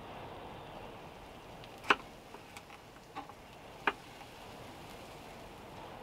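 A few sharp clicks and taps of a knife against a frying pan and wooden cutting board, the loudest about two seconds in and another near four seconds, over a steady faint hiss.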